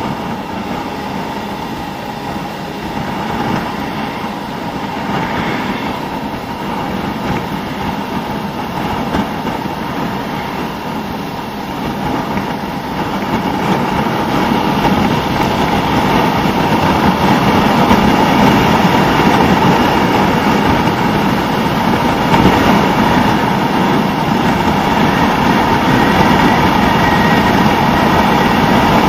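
Suzuki SV650 V-twin engine running as the motorcycle rides along, mixed with steady wind and road rush. It gets louder about halfway through.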